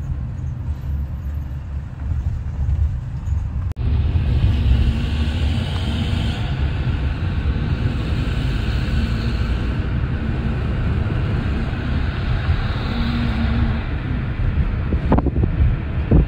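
A moving car's road noise: a steady low rumble with tyre hiss. It cuts out briefly just before four seconds in, then comes back louder and fuller.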